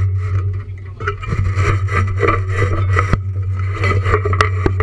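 Metal mounting gear being handled and scraped by hand right at the microphone, with irregular knocks and rattles, over the steady low hum of the vehicle's engine.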